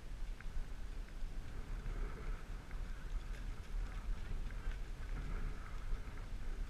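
Wind rumbling on the microphone of a camera worn by a rider on a moving horse, with a few faint clicks scattered through it.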